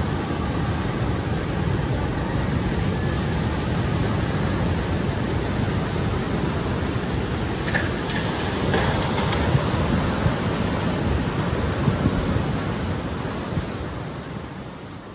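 Tsunami surge water rushing ashore in a loud, steady rush, mixed with wind noise. There are a few sharp knocks about eight to nine seconds in, and the sound fades out near the end.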